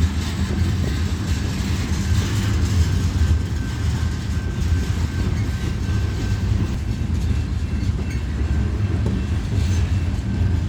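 Freight cars of a BNSF train rolling past: a steady low rumble with a few faint wheel clicks.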